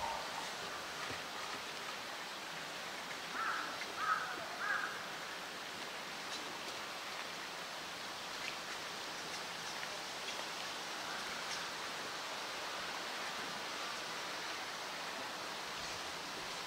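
Steady rush of running water in a polar bear's pool enclosure, with three short, high-pitched sounds close together about three and a half to five seconds in.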